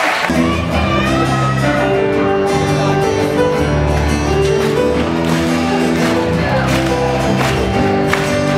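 Live pop band starting a song: sustained keyboard chords over an electric bass line, with guitar; the applause cuts off as the music begins, and a young woman's singing voice comes in near the end.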